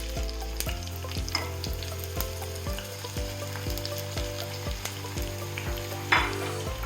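Sliced onions sizzling as they fry in hot oil in a pan, stirred now and then, with a sharper, louder scrape or knock about six seconds in.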